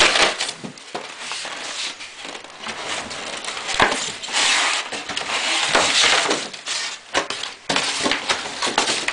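Rustling and crinkling of packing material being handled, with scattered light knocks and clinks, busiest in the middle.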